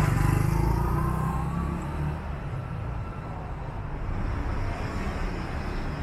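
A motor scooter's small engine passes close by, loud at first and fading away over about two seconds. Behind it is a low, steady hum of street traffic.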